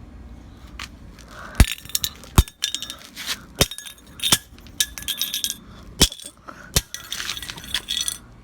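A hammer striking a kitchen timer: about six hard blows roughly a second apart, with clinking and rattling of small loose parts between them.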